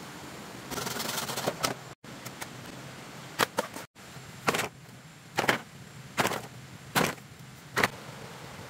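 A machete working green bamboo: about a second of rapid hacking and scraping, then a few sharp knocks, then five evenly spaced chops a little under a second apart.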